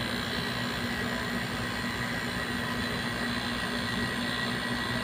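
Old window-type air conditioner running on high cool: its rotary compressor and fan give a steady hum and whir, with a low tone and a higher whine. The compressor is starting and running normally on a newly replaced compressor capacitor.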